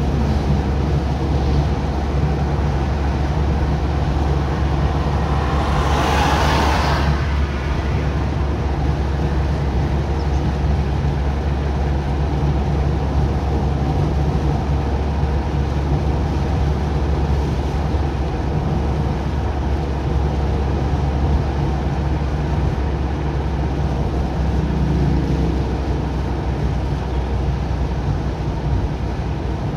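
Car driving at speed on a dual carriageway, heard from inside the cabin: a steady low drone of engine and tyre noise. About six seconds in, a brief rushing whoosh swells and fades.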